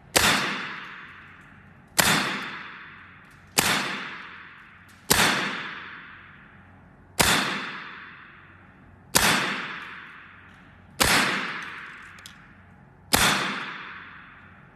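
Evanix semi-automatic PCP air rifle in .25 calibre firing eight shots in a row, about one every two seconds. Each shot is a sharp crack with a long fading tail.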